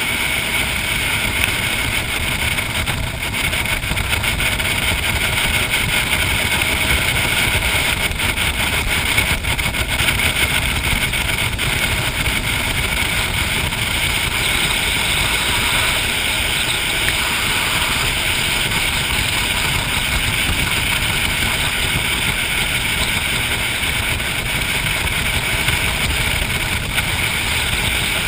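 Jet boat running steadily under way on calm river water: an even engine drone mixed with the constant rush of water along the hull.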